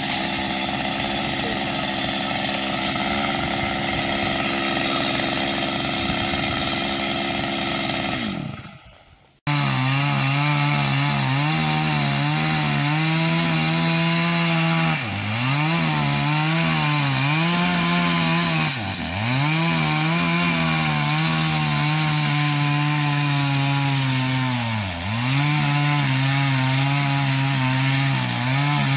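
Stihl MS 250 two-stroke chainsaw running at high speed, cutting wood, its engine pitch dipping briefly a few times as the chain bites and then recovering. About eight seconds in the sound fades out and then cuts back in abruptly.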